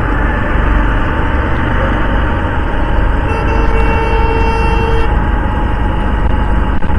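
Steady traffic and riding noise from a motorcycle moving through city traffic, with a vehicle horn sounding once for about a second and a half in the middle.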